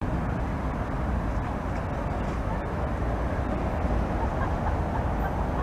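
Steady low rumble of city traffic, with a Siemens Combino tram approaching along the track in the distance.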